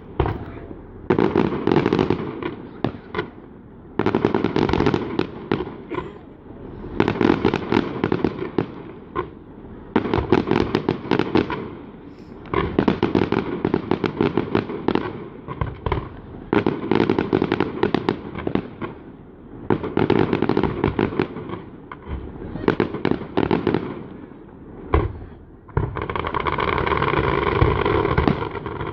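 Fireworks display: repeated volleys of rapid crackling bangs coming every two or three seconds, turning into a steadier continuous crackle near the end.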